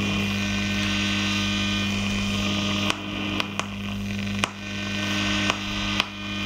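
Philips 22RB382 valve radio's speaker giving out steady mains hum with hiss on top while the dial is tuned across long wave, picking up no station; a few sharp crackles come in the second half. The set is running through a dim-bulb tester, and the restorer puts the heavy hum down to filter capacitors that probably need changing.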